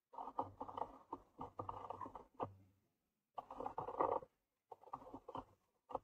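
Grey squirrel scrabbling over the camera's protective case, its claws scraping and knocking on the housing in several short flurries. The sound is muffled and close, as if heard underwater, because it comes through the sealed case.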